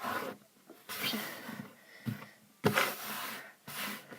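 Slime with Orbeez being scraped up and gathered together: a series of short, wet scraping and squishing strokes, about one a second.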